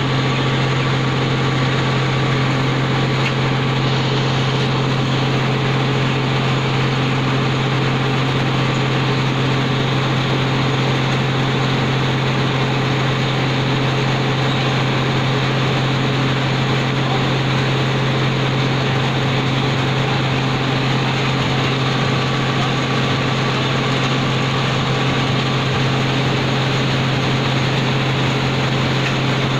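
Kinnow orange waxing and grading line running: a steady machine hum from its motors and conveyors, with a strong low tone held at one pitch and no change in level.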